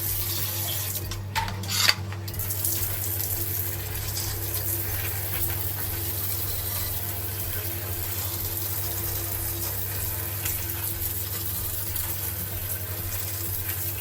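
Water spraying steadily onto air-conditioner parts being washed. It stops briefly about a second and a half in, with a couple of knocks, then starts again. A steady low hum runs underneath.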